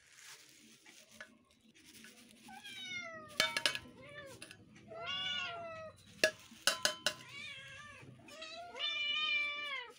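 Cats meowing, three times: a falling meow, then an arched one, then a longer drawn-out meow near the end. Between the meows come a few sharp clicks, which are the loudest sounds.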